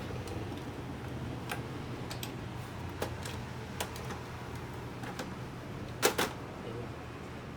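Irregular clicks and taps of plastic printer parts being handled and fitted back together during reassembly, over a steady low hum; the loudest is a quick double click about six seconds in.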